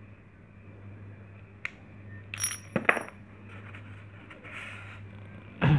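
Small metal parts of an aluminium air-rifle chamber clinking and tapping as it is handled and taken apart: a single click, then a quick run of sharp clinks with a brief ringing, and a dull thump near the end.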